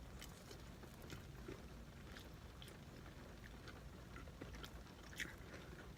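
Faint chewing with scattered soft mouth clicks, and a slightly louder click about five seconds in.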